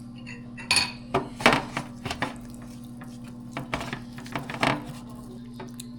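Kitchen clatter: dishes and utensils clinking and knocking in irregular bursts over a steady low hum.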